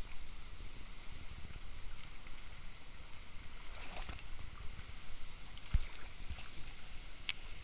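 Steady rushing roar of the La Fortuna waterfall and its choppy plunge-pool water, heard from right at the water surface. A few sharp splashes knock close by, about four seconds in and again near the end.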